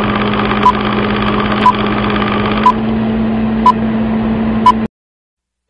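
A steady mechanical hum with a short, sharp beep-tick exactly once a second, five times. It all cuts off abruptly about a second before the end, leaving silence.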